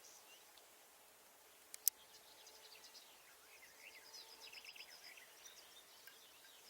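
Faint chirping and calling of small birds, with two sharp clicks close together a little before two seconds in.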